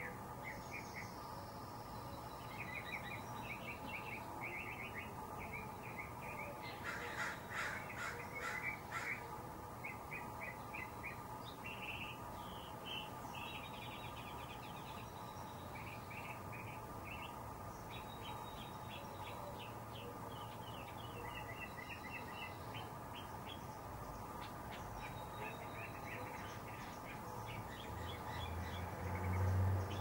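Backyard birds chirping in quick repeated runs of short notes, with a run of about five loud, harsh caw-like calls about seven seconds in. A steady faint hum lies underneath, and a low rumble swells near the end.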